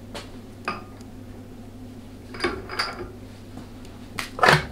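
Metal parts and tools being handled on a workbench: a few light clinks and knocks, with the loudest knock near the end, over a steady low hum.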